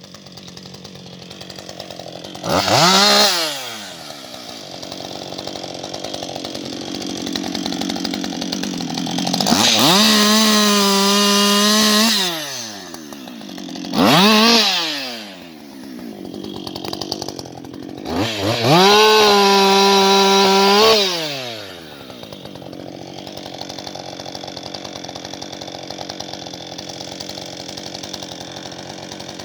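Husqvarna 560XP two-stroke chainsaw idling and revved up four times: two short blips and two full-throttle runs of two to three seconds each. At full throttle the pitch holds steady, then drops back to idle.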